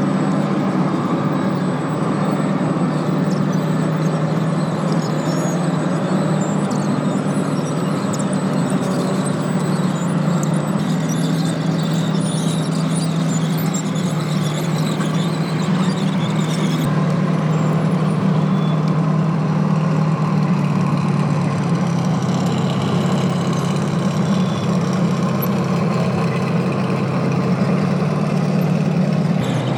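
Steady engine drone from 1/6-scale RC military vehicles, with scattered high squeaks over it during the first half.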